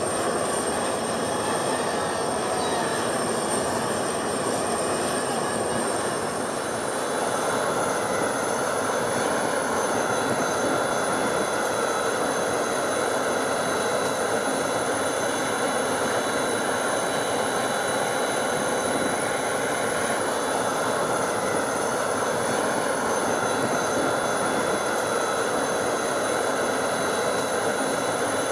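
Jet aircraft engines running: a steady rush with thin high-pitched whines on top. The whines change pitch about six seconds in.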